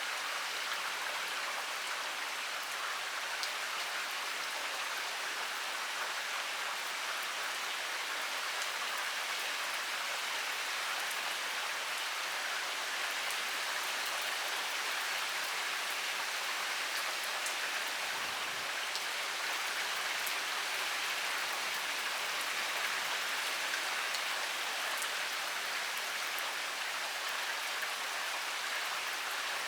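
Heavy rain pouring steadily onto surfaces, an even hiss with faint scattered drop ticks.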